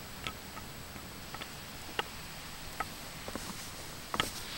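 A hiker's footsteps on a forest trail: sparse light ticks of boots on dirt and twigs, then a few louder knocks about four seconds in as the boots step onto wooden steps.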